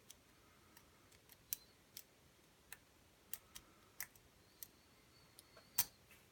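Lock pick working inside a pin-tumbler lock: sharp, irregular metal clicks, about a dozen, the loudest a little before the end, as the pins are lifted and set.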